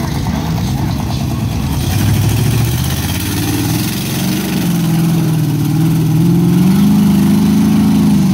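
Mud truck's engine revving under load as it drives through a mud pit; the pitch climbs, dips about four seconds in, then rises again and holds high near the end.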